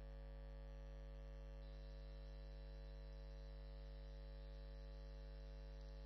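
A faint, steady low electrical hum with no strokes or impacts, joined about one and a half seconds in by a thin, faint high whine.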